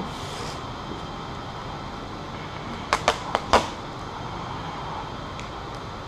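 Vinyl wrap film being squeegeed onto a car hood: steady background hiss with a quick run of four sharp clicks or snaps about halfway through.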